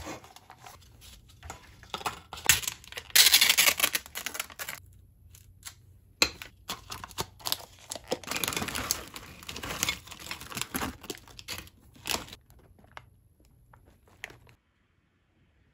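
Close handling noises: crinkling and rustling with scattered light clicks and taps, in a few louder bursts, stopping about a second before the end.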